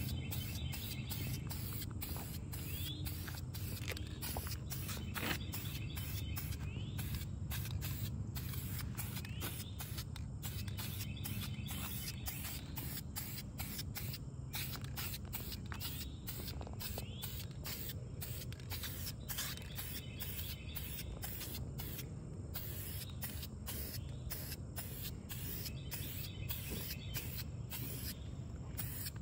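Aerosol spray-paint can hissing on and off as paint is sprayed onto a car's inner fender.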